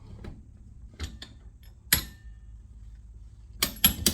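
Hammer blows on the rear axle of a Yamaha TT-R dirt bike, struck to drive out the axle, which is stuck and won't come out. Two light taps come about a second in, then one sharp ringing metal strike. Near the end a quick run of harder blows begins.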